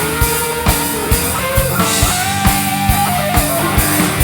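Live hard-rock band playing an instrumental passage: drum kit keeping a steady beat of about two hits a second under distorted electric guitar chords and keyboards, with a held lead note in the middle. Heard through a direct line feed from the club's mixing desk.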